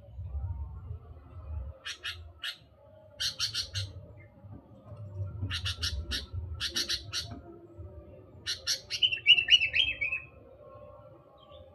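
Sooty-headed bulbul calling: quick clusters of three to five sharp chirps repeated every second or so, then a short falling warbled phrase about nine seconds in.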